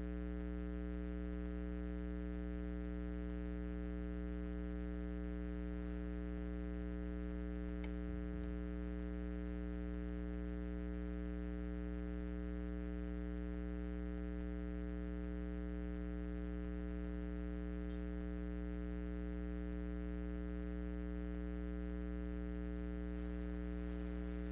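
Steady electrical mains hum: a low buzz with a ladder of higher overtones that does not change at all, with one or two faint ticks.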